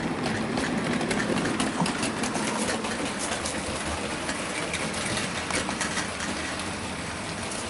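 Hornby OO gauge S15 model locomotive running with a steady motor whir as it hauls a rake of mineral wagons, with light clicking from the wheels on the track. It grows a little quieter towards the end.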